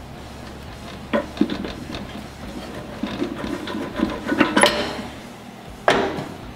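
Metal clinks and rattles as a Harley-Davidson touring bike's steel front axle is turned with a socket tool and slid out of the fork leg and wheel hub, with one sharp clank near the end.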